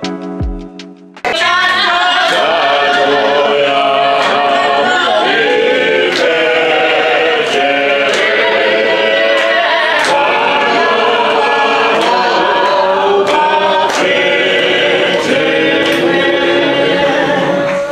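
A group of people singing together unaccompanied, with hand-claps keeping a steady beat. The singing starts abruptly about a second in, cutting off a short stretch of music.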